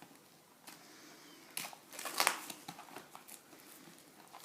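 Trading card box packaging crinkling and tearing as it is opened, in a cluster of short, sharp crackles about halfway through.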